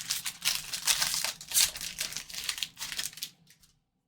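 Foil wrapper of a baseball card pack crinkling and tearing as the pack is opened by hand. The dense crackling stops shortly before the end.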